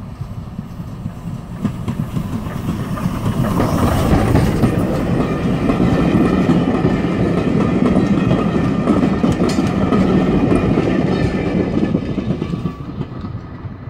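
Steam tank engine W24, an LSWR O2 class, passing close with a train of vintage carriages. The sound builds as the engine nears and the wheels clatter over the rail joints, loudest as the coaches go by, then fades near the end.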